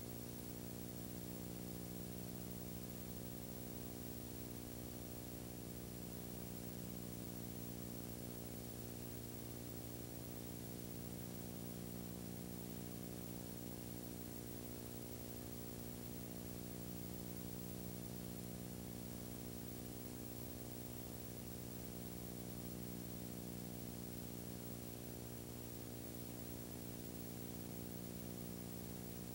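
Steady low electrical hum with a stack of even overtones, under a faint hiss. It stays unchanged throughout.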